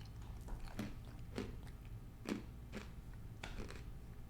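A person chewing a mouthful of crunchy pretzels and peanuts from a spicy snack mix: irregular crisp crunches, roughly two a second.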